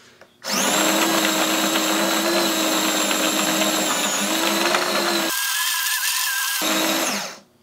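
Small battery-powered mini food processor motor whining steadily with garlic cloves inside. It starts about half a second in and cuts off near the end. Its blades spin the wrong way, so the cloves are only knocked around and not chopped.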